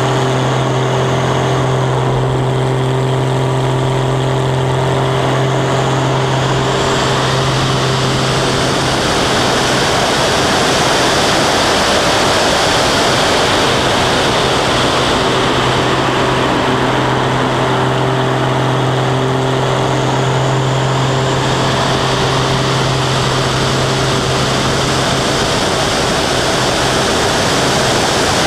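Aerobatic biplane's piston engine and propeller running at steady power in flight, a steady drone held at one pitch, under heavy wind rush over the wing-mounted camera. The wind rush swells twice, and the engine drone fades under it near the end.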